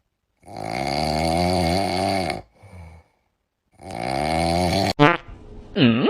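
A sleeping pet snoring loudly, with two long snores a few seconds apart and a short faint breath after the first. Near the end come a sharp click and a short squeak that falls and rises again.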